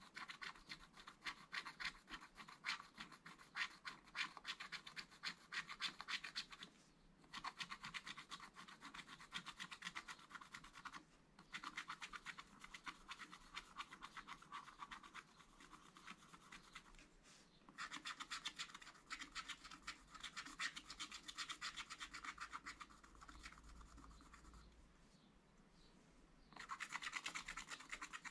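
Wooden stylus scratching the black coating off a scratch-art card in quick back-and-forth strokes. The scratching comes in runs broken by short pauses, goes quieter for a few seconds near the end, then picks up again.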